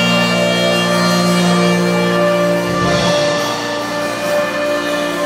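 Live norteño band playing long held chords, the lowest note dropping out about three seconds in.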